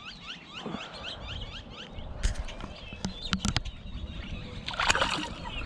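A bird chirping in a quick run of short falling notes, followed by several sharp knocks and a brief rush of noise near the end.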